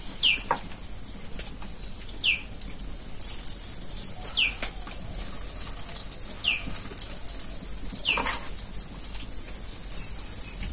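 A bird's short falling chirp, repeated about every two seconds, over the steady hiss and crackle of battered soybean chunks frying in oil in a wok.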